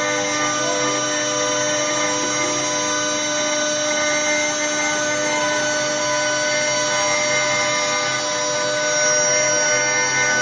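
CNC wood-carving router running steadily: a whine of several steady tones over a constant hiss.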